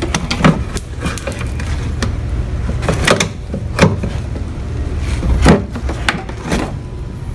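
A metal turbo charge pipe with a silicone coupler being worked loose and snaked out of a BMW N54 engine bay: a run of irregular knocks and scrapes as the pipe bumps and rubs against hoses and engine parts.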